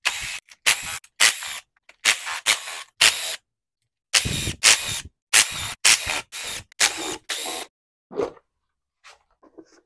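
Cordless DeWalt power driver spinning out the valve-cover bolts of a Ford 4.6L V8 in about a dozen short runs. The runs come in two groups with a pause between them, followed near the end by a faint knock or two as the cover comes off.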